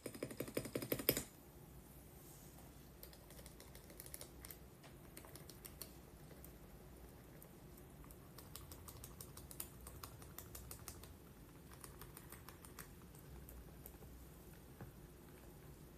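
Typing on a mechanical keyboard with Outemu switches. A loud, rapid run of keystrokes lasts about the first second, then fainter keystrokes continue on and off.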